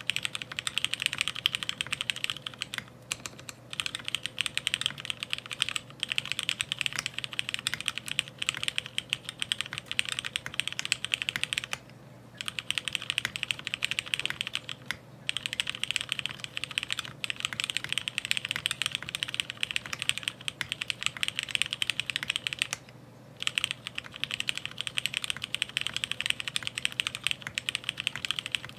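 Fast, continuous typing on a 60% mechanical keyboard in a ceramic housing: a dense run of key clacks, broken by short pauses about three seconds in, around twelve and fifteen seconds, and around twenty-three seconds.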